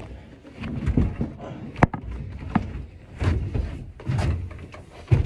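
Irregular knocks and thuds, about one a second, as a heavy wooden table is carried up a staircase by hand, with one sharp knock about two seconds in.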